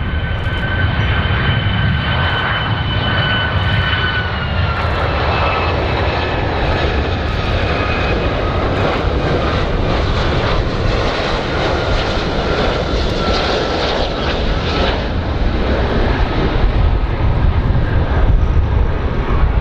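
Boeing 757 airliner on final approach with its turbofan engines running: a steady deep rumble under a high whine of two tones. The whine slides down a little about four seconds in and fades out after about fifteen seconds.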